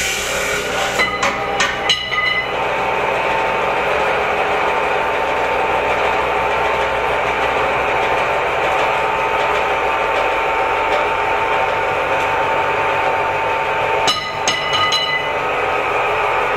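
Homemade abrasive chop saw's electric motor running steadily with the cut-off disc spinning free after a cut through steel tube. Metal clinks come about a second in and again near the end.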